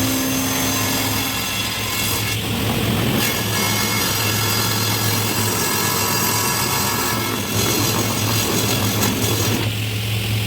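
Electric woodworking power tool running continuously, with a steady motor hum under a high-pitched whine and hiss.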